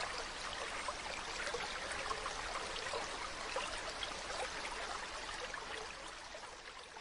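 Mountain river running: a steady rush of water with many small splashes, fading out near the end.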